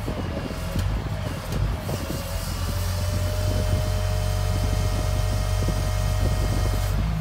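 Crane truck's CAT 7.2L inline-six diesel running steadily while the Effer knuckle boom crane is operated, with a few light knocks in the first two seconds. About two seconds in a steady high whine sets in over the engine and holds.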